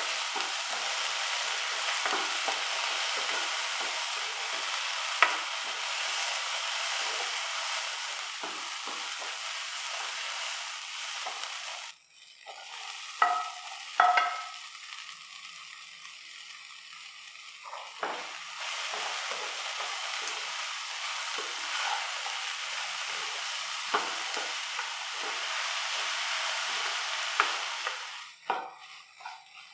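Onion, tomato and dry chillies sizzling in hot oil in a nonstick pan, stirred with a spatula in repeated scraping strokes. About twelve seconds in the sizzling drops away and two short ringing clinks are heard. The sizzling and stirring pick up again a few seconds later and fade near the end.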